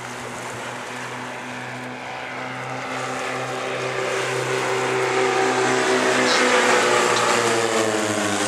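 Two Silence Twister light aerobatic planes' propeller engines droning in close formation, growing louder as they approach. In the second half their pitch drops as they pass by.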